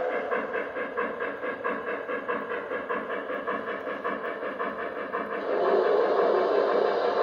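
Lionel Shay model steam locomotive's onboard sound system chuffing steadily, about three chuffs a second, with hiss and the train running on the track. About five seconds in, a louder steady rushing sound joins.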